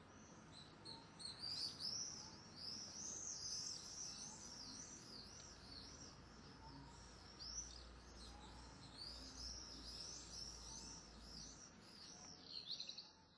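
Faint birdsong: a busy stream of quick, high, arching chirps and twitters, fading out near the end.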